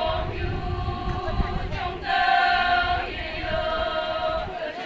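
Group of Konyak Naga women singing a traditional chant in unison, in long held notes of about a second each with short breaks between them.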